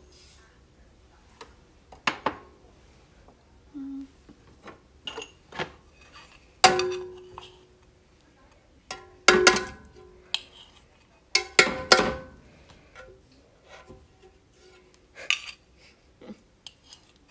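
Ceramic bowl and kitchen utensils knocking and clinking against a metal bread machine pan as ingredients are tipped in. About a dozen irregular knocks and clinks, several with a brief ring; the loudest come about seven seconds in and again around ten to twelve seconds.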